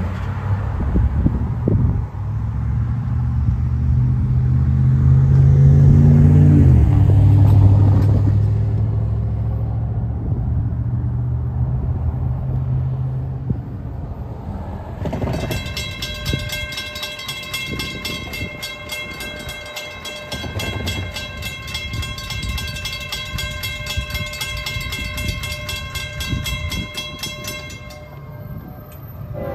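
Low drone of a passing road vehicle that drops in pitch about a quarter of the way in. About halfway through, a railroad crossing's warning bell starts ringing rapidly and keeps ringing: the crossing has activated for an approaching train.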